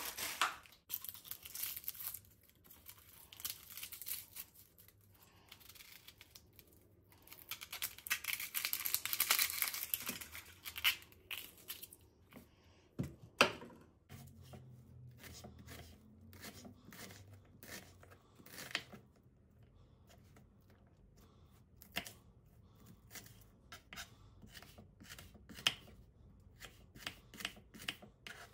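Crinkly rustling and tearing for about the first twelve seconds, then a kitchen knife chopping an onion on a wooden cutting board: a long run of short, sharp taps.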